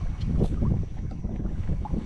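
Wind buffeting the microphone on a kayak in gusts, a low uneven rumble that eases slightly near the end.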